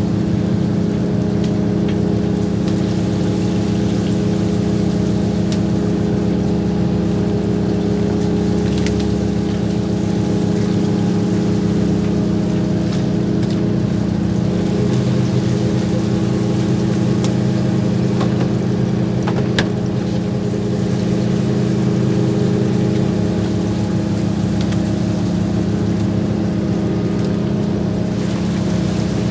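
Fishing boat's engine running steadily, a constant low hum. A deeper tone joins for several seconds past the middle, and a few sharp clicks come from work on deck.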